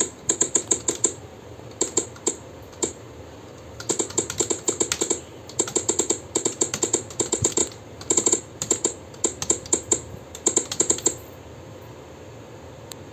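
Typing on a full-size computer keyboard: quick key clicks in flurries broken by short pauses, stopping about eleven seconds in.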